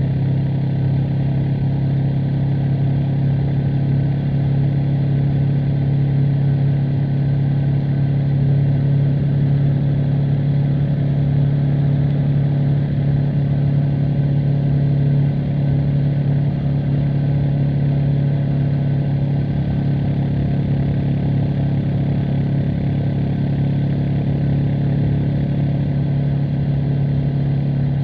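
Honda CB500X's 471 cc parallel-twin engine and exhaust under way, holding a steady engine note at an even cruising speed.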